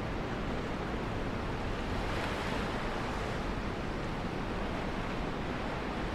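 Steady wash of sea water with wind buffeting the microphone aboard a sailboat, a low rumble under the hiss, which swells slightly about two seconds in.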